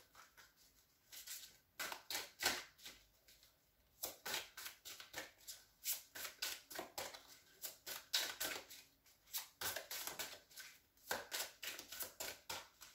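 A tarot deck being shuffled by hand: quick runs of soft card flicks and slaps, with short pauses between runs.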